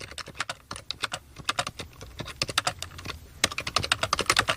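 Rapid, irregular clicking like keys being typed on a keyboard, several clicks a second.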